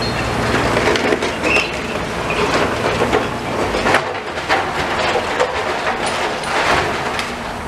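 Demolition excavator at work: rubble and scrap clattering and crunching, with many short knocks and scrapes. A low engine drone runs under it and drops away about four seconds in.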